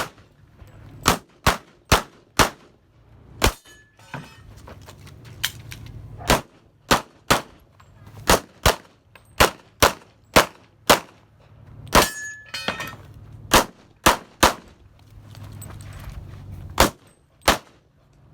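About twenty pistol shots from a .40 S&W competition pistol, fired in quick strings of two to five with short pauses between, as a shooter works through a timed stage. A brief metallic ring follows a couple of the shots, as of steel targets being hit.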